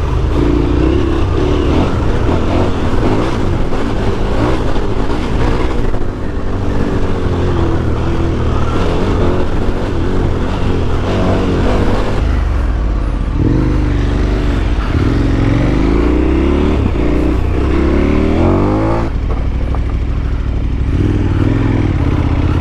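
KTM 1290 Super Adventure S's V-twin engine running off-road under constantly changing throttle, its revs rising and falling again and again, over a steady low rumble of wind and ground noise.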